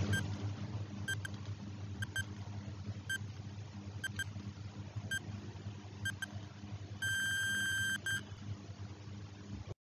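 Countdown timer sound effect: a short double beep about once a second, then a long steady beep about seven seconds in as the count reaches zero, over a low steady hum that cuts off near the end.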